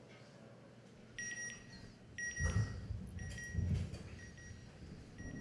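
Electronic pinging beeps from the closing logo sting of a NASA Goddard video, played through the room's speakers. The beeps come about once a second, each high and fading, under two deeper low swells.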